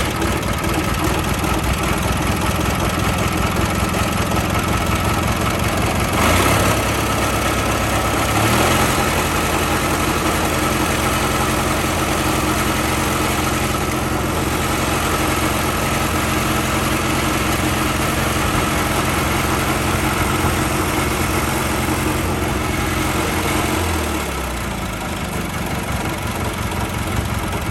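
An 18 hp twin-cylinder gasoline engine on a Hotsy hot-water pressure washer, just started on the battery, running steadily. Its speed picks up about eight seconds in and drops back to a slower, quieter run near the end.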